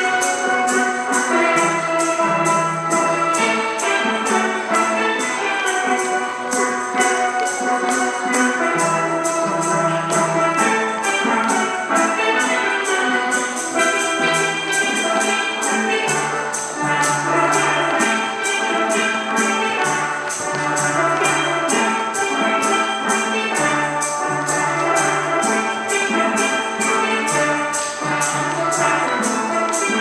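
Upbeat music with a steady beat: a melody of pitched notes over a stepping bass line and a quick, even high-pitched pulse.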